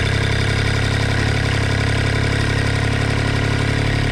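Diesel engine running steadily at a constant speed, a low even hum with no revving.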